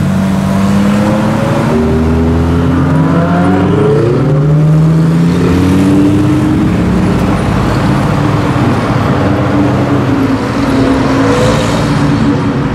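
Supercar engines accelerating away one after another: a Ferrari 458 Speciale's V8, then a Lamborghini Huracán's V10, then an Audi R8. Several rising engine notes as each pulls off, over a steady engine drone.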